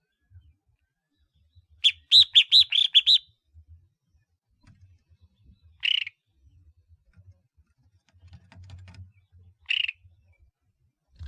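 Collared finchbill calling: a quick run of about seven loud notes, then two single notes a few seconds apart.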